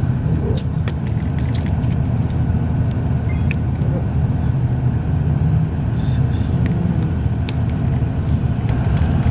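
Steady low rumble of a moving road vehicle's engine and tyres, with scattered light clicks and rattles.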